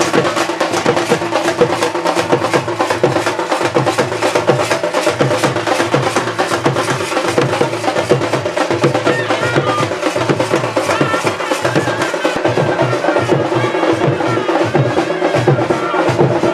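Music with fast, steady percussion, about four to five strokes a second, over a sustained held tone.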